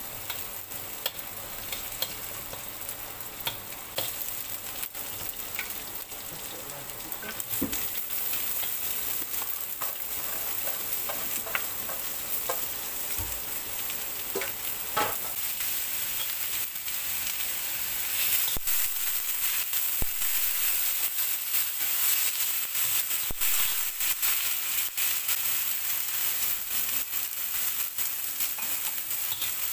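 Stir-frying in a wok: chopped onion and aromatics sizzle in hot oil, and a metal spoon clinks and scrapes against the pan. Strips of white gourd go in partway through, and the sizzle grows louder and stays steady as they are tossed.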